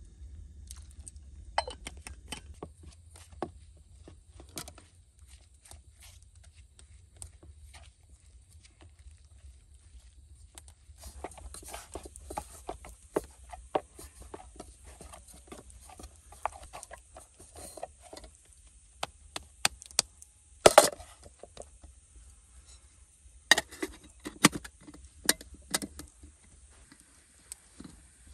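Irregular handling sounds: scattered clicks and knocks, with one sharper knock about two-thirds of the way in and a cluster of knocks near the end.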